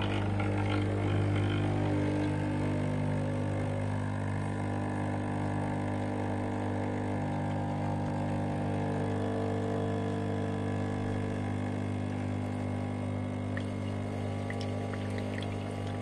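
DeLonghi ECI341 espresso machine's vibration pump running with a steady hum as it pushes water through the coffee in the portafilter. Near the end, coffee starts dripping and trickling into the mug.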